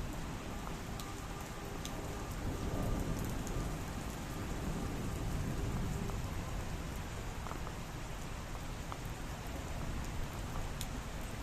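Steady rain falling, with scattered sharp drip clicks here and there.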